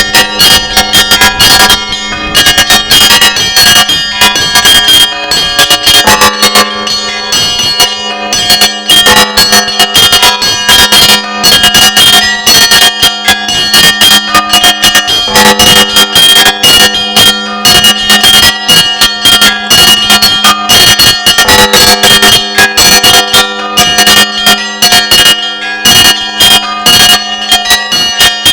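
Russian Orthodox church bells ringing a festive Easter peal from the bell tower. Several bells of different pitches are struck in quick succession over the steady hum of a lower bell. The ringing is loud and continuous.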